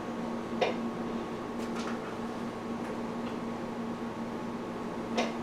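Steady low electrical hum with three light clicks, about half a second, two seconds and five seconds in.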